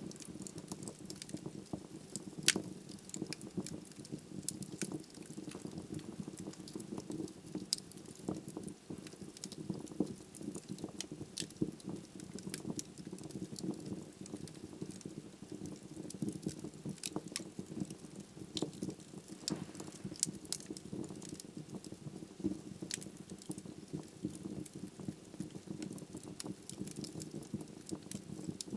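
Wood logs burning in a fireplace: a steady low rumble of flame with frequent sharp crackles and pops, one louder pop about two and a half seconds in.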